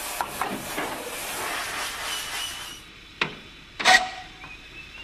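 Steam locomotive hissing steam, from a 1950s archive recording. The hiss cuts off about three seconds in and is followed by two sharp knocks, the second the loudest.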